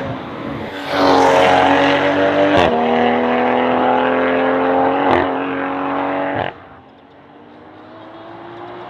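BMW B58 turbocharged straight-six through an aftermarket exhaust, accelerating hard with its pitch climbing. There are two upshifts, each marked by a short crack and a sudden drop in pitch. Near the end the sound falls away sharply, then builds again more quietly.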